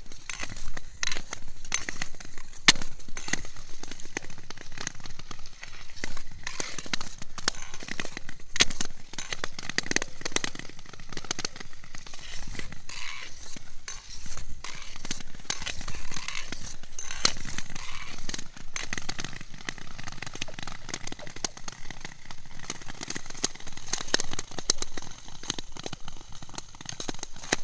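Thin black ice crackling and clicking under a skater, with many sharp cracks over the steady hiss of blades gliding on the ice.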